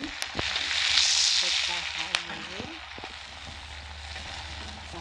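Peanuts, shallots, garlic and chilies frying in a wok, sizzling loudest in the first second or so and then more steadily. A spatula clicks against the pan twice, with a steady low hum underneath.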